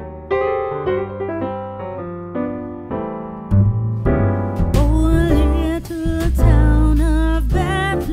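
Music: a piano intro of held chords, then about three and a half seconds in a deep bass and beat come in and a singing voice takes up the melody.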